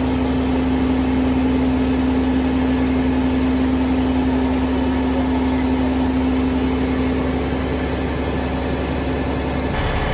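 Rollback tow truck's engine idling while its winch slowly drags a car up the bed: a steady low drone with one even tone over it. It cuts off abruptly near the end.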